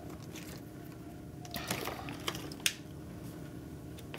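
Low steady room hum with a few short, soft clicks between one and three seconds in.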